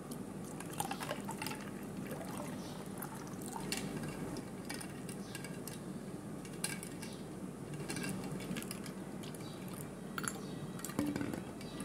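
Water pouring from a jug into a bowl of rose syrup and ice cubes, then a metal spoon and ladle stirring the drink, with ice and metal clinking against the bowl now and then.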